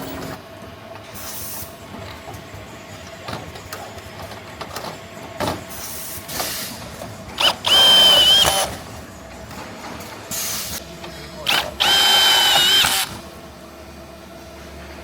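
Handheld power tool, such as a drill or nut runner, run in two bursts of a little over a second each, each preceded by a brief blip of the trigger. Its high whine spins up at the start of each burst and winds down at the end, over a background of workshop clatter.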